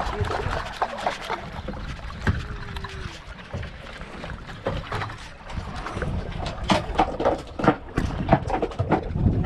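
Low wind rumble and water noise around a small fishing boat at sea, with a run of sharp, irregular knocks and clatters in the last three seconds.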